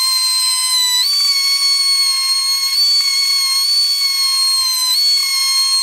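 Die grinder with a ball-shaped carbide burr, running at speed while cutting a deep V-groove along a crack in a polyethylene washer reservoir. A steady high whine that steps up slightly in pitch about a second in and sags briefly near the end.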